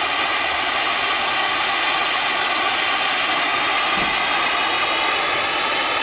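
Weco Color Stars firework fountain burning with a steady hiss as it sprays a column of gold sparks.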